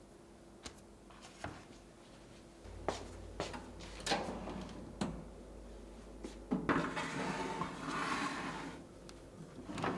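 Kitchen handling sounds: scattered light knocks and clicks of utensils, dishes or containers being set down and moved, with a couple of seconds of scraping or rustling about two-thirds of the way in.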